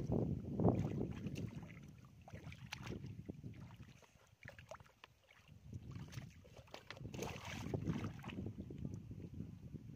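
Wet mud and shallow muddy water sloshing and squelching as a person wades and gropes through it by hand. It comes in irregular surges, strongest at the start and again in the second half, with a lull around the middle.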